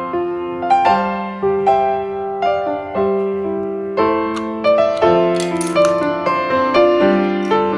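Background piano music: a gentle melody of single notes and chords that strike and fade one after another.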